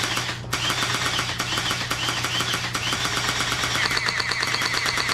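Electric AK-47 gel blaster firing on full auto: its motor and gearbox run with a fast, even mechanical rattle, pausing briefly about half a second in.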